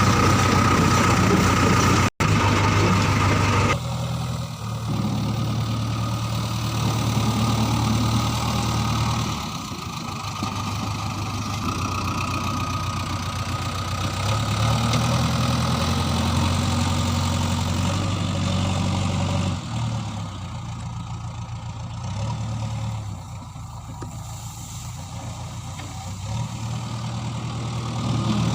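Heavy diesel engine running at a low, steady speed, with its pitch and level changing abruptly a few times and a brief dropout about two seconds in.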